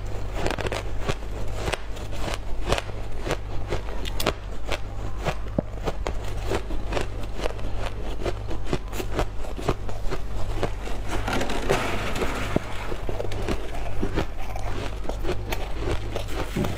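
Close-miked chewing of refrozen shaved ice: a dense run of sharp crackly crunches in quick succession, over a steady low hum.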